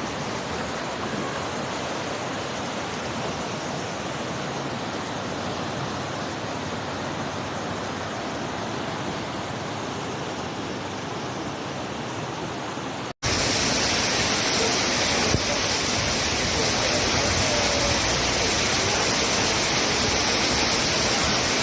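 Steady rush of fast-flowing floodwater, an even noise throughout. About thirteen seconds in it breaks off for an instant and comes back louder.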